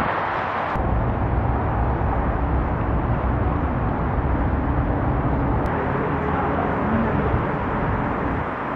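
Steady outdoor ambience with a hiss. About a second in it changes abruptly to a heavy low rumble of wind on the microphone, which runs on under the noise.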